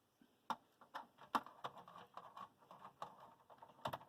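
Faint, irregular metal clicks and light rattling of a 5mm socket driver working the hex screws off a satellite receiver's RS232 connector, with a sharper click about half a second in and another near the end.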